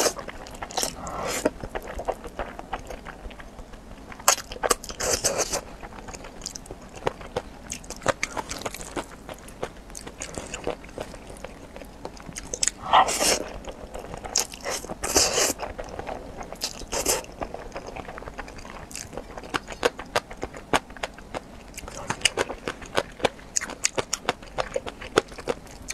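Close-miked eating of zhajiangmian, thick noodles in black bean sauce: several long wet slurps of noodles, the loudest about halfway through, between runs of chewing with many small mouth clicks and smacks.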